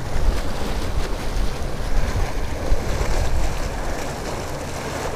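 Wind rumbling and buffeting on the microphone over the steady sound of water running out of a spill pipe into the river.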